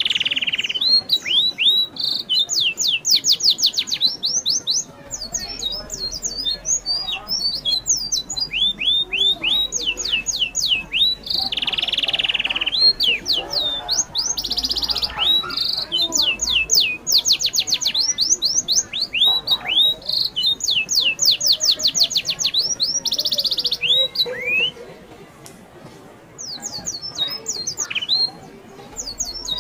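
High-pitched animal chirps and squeaks: quick runs of short, downward-sweeping calls in repeated bouts, with a few longer, louder squeals. There is a quieter lull about 25 seconds in.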